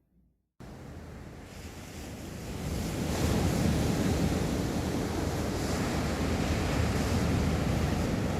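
Sea waves washing onto a beach, with wind buffeting the microphone. The sound cuts in abruptly about half a second in and swells louder over the next couple of seconds, then holds steady with slow surges.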